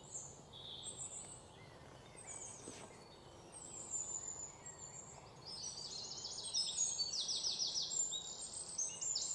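Birds chirping and calling in quick high trills over a faint background hiss, sparse at first and busier in the second half.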